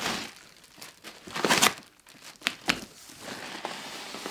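Packing material being pulled out of a cardboard shipping box and crumpled, in a series of rustling, crinkling bursts with a few sharp crackles; the loudest burst comes about a second and a half in.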